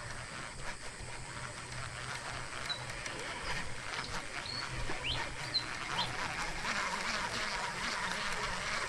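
Baitcasting reel being cranked to wind in a hooked juvenile snakehead: a steady fine rapid ticking of the reel's gears, with a few brief high chirps in the middle.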